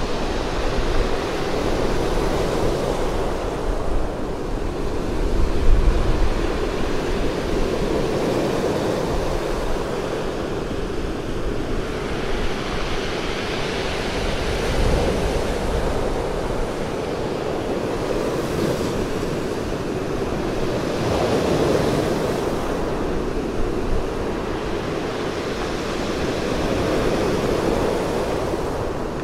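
Sea surf breaking on a pebble beach, waves crashing and washing up over the shingle in surges every few seconds. Some wind rumble on the microphone.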